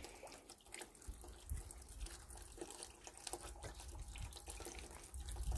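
Faint running and splashing water from a small 12 V brushless water pump's outlet as it pumps, with scattered light clicks.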